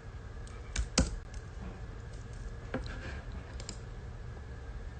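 About half a dozen scattered light clicks and taps over the first few seconds, the loudest about a second in, over a low steady hum.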